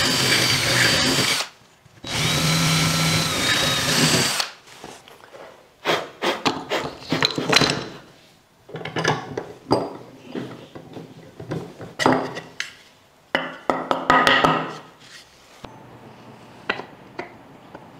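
A handheld electric power tool working wood, running in two bursts with a steady whine and a short stop about a second and a half in. It then gives way to irregular knocks and scraping as the wood is handled and worked by hand.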